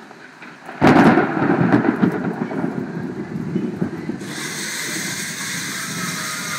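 Thunderclap from a very close lightning strike: a sudden loud crack about a second in, then a heavy rumble that slowly eases. About four seconds in, a steady high hiss joins the rumble.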